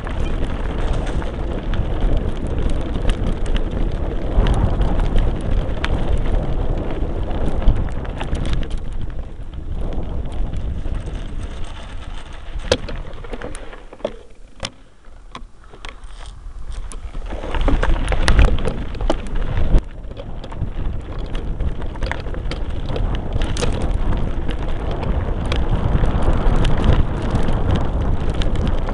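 Mountain bike riding over a dry gravel and dirt track: tyres crunching over stones, the bike rattling, and wind buffeting the microphone, with sharp knocks from bumps. The noise eases off for a few seconds around the middle, then picks up again.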